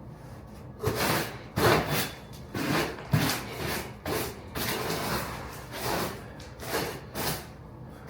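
Hand saw cutting a notch in a vinyl flooring plank: a run of rasping back-and-forth strokes, about two a second.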